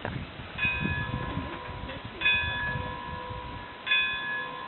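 Bell on a large cuckoo clock, struck by the figure of a man three times, about every second and a half, each stroke ringing on.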